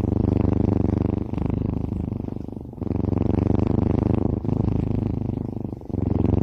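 Kitten purring loudly and close up: a low, rapid rumble in cycles of about a second and a half, with a short break between each.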